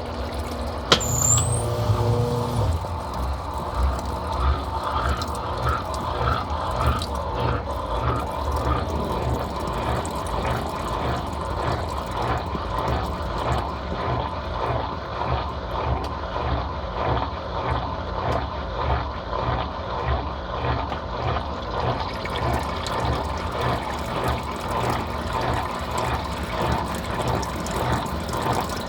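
Brastemp Total 7 kg (BWL07) washing machine in its wash cycle: a click about a second in, a steady hum that stops shortly after, then the drum's contents churning in water with regular back-and-forth strokes, about two a second.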